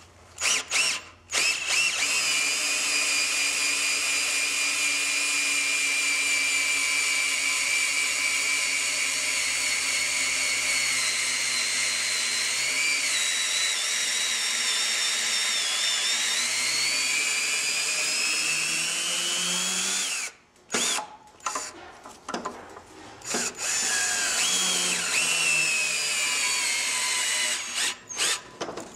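Cordless drill whining steadily as it spins a cutting tool in the servo bore of a Ford 5R55-series transmission case, its pitch sagging briefly midway and coming back up. It stops about two-thirds of the way in, runs in a few short trigger bursts, then makes another longer run near the end.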